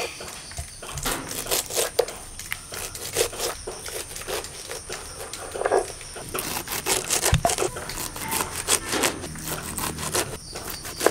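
Knife chopping tender pumpkin stems and leaves on a wooden chopping board: a run of sharp knife strikes, spaced out at first and coming several a second from about halfway through.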